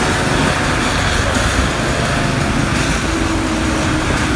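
Intercity coach's diesel engine and loud exhaust running as it drives, a steady drone heard from close behind, with a faint tone that rises slightly about three seconds in.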